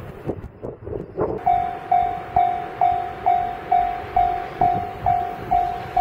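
Japanese railway level-crossing warning bell: a few faint knocks, then from about a second and a half in a single ringing tone struck a little over twice a second. It is the crossing alarm that signals a train approaching.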